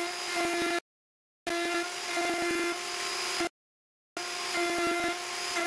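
Plunge router running with a steady whine while its bit cuts threads into a large wooden dowel being turned through a screw-making jig, with short crackles as the bit bites the wood. The sound cuts off abruptly twice, about a second in and past the middle, and resumes each time after a gap of under a second.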